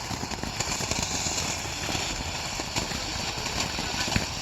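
Ground fountain firework spraying sparks: a steady hiss with a few sharp crackles.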